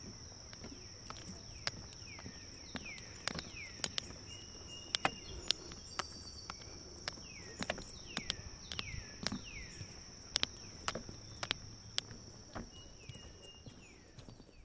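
Forest ambience: a steady high-pitched insect drone, a bird calling in short runs of three or four falling whistles, repeated several times, and the irregular clicks of footsteps.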